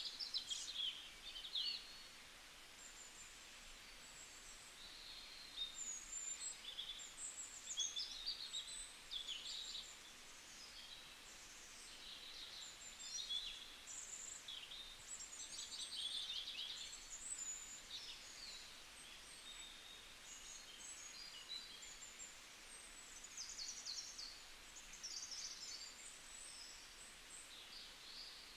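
Several small birds chirping and trilling, short high calls overlapping throughout, over a faint steady hiss.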